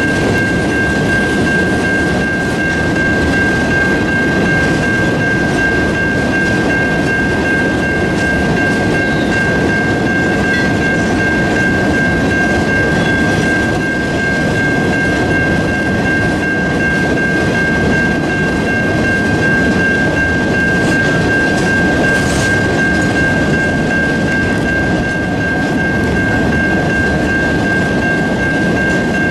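Ore hopper cars of a Duluth, Missabe & Iron Range ore train rolling past at a steady pace, their wheels running loud and unbroken on the rail. A steady high-pitched tone sounds over the rolling noise throughout.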